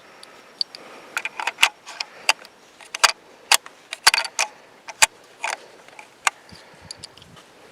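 Irregular metallic clicks and clinks of cartridges and a 30-06 rifle's action being handled while the rifle is loaded, about a dozen sharp ticks.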